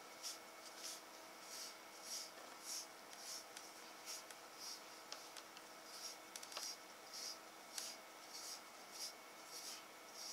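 A bristle grooming brush stroking through a kitten's fur: a steady run of soft, short swishes, a little under two a second, with a few faint clicks between them.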